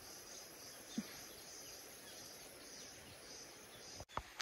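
Faint outdoor ambience with a steady high-pitched insect drone, a brief low sound about a second in and a short knock near the end.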